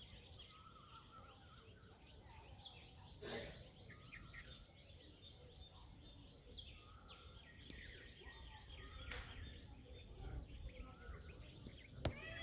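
Faint outdoor ambience of scattered small bird chirps and calls over a steady, thin, high insect buzz, with a low rumble underneath. There are two short noisy rustles partway through and a sharp click near the end.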